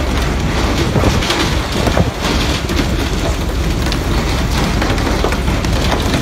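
Steady hiss of water sprayers showering spray over the sea beside a pole-and-line fishing boat, over the low, steady drone of the vessel's engine, with frequent sharp knocks and slaps as fish and poles hit the deck and rail.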